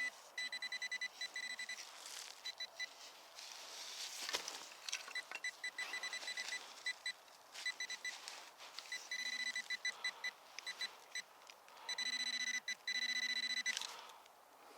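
Metal detector beeping over a buried target. It gives a high, steady tone broken into many quick pulses, with longer held beeps near the end. A single sharp knock comes about four seconds in.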